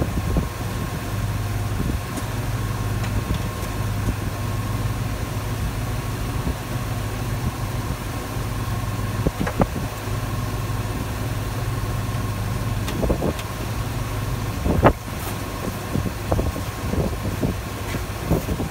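Pickup truck engine idling steadily, with a faint steady whine above it. A few clicks and knocks from handling the plow hookup, the sharpest about fifteen seconds in.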